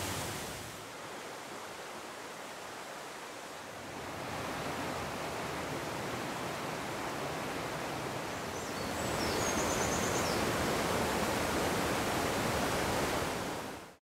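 Steady rushing of a forest waterfall and a mountain stream running over boulders. The level steps down about a second in, then rises twice, the second time about nine seconds in, and the sound cuts off abruptly at the end.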